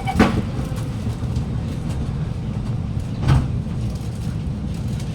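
Alstom Movia R151 train carriage: the doors thud shut just after the start, then a second heavy clunk follows about three seconds in, over a steady low rumble inside the carriage.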